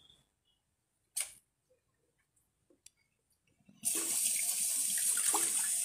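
Water from a kitchen tap running into the sink, starting suddenly about two-thirds of the way in as a steady hiss. Before it, near silence with one short hiss about a second in.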